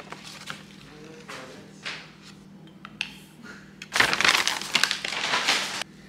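Plastic pouch of chia seeds crinkling as it is handled: a loud, dense crinkling for nearly two seconds starting about four seconds in, after a few scattered rustles and clicks.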